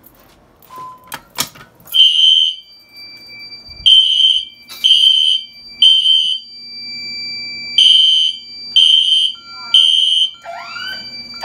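Fire alarm system going into alarm: a few sharp clicks, then a horn sounding in the temporal-3 evacuation pattern, three pulses, a pause, three pulses, over steady high-pitched panel or keypad tones. Near the end a second device joins with repeated rising swoops.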